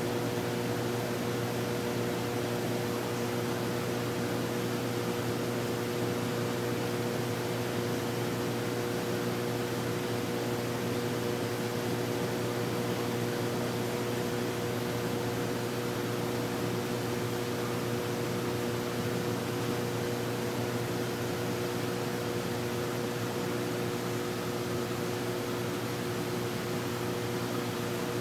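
Steady machine hum with a hiss, several fixed tones holding without change.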